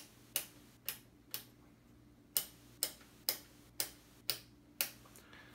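Rotary voltage switch on a Heathkit IT-11 capacitor checker clicking through its detents, about ten sharp clicks at roughly two a second with a short pause about one and a half seconds in. The test voltage is being stepped up toward 400 V in a leakage test on a paper coupling capacitor.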